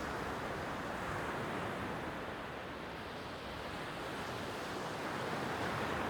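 Sea waves washing on the shore: a steady wash of surf that eases slightly midway and swells again near the end.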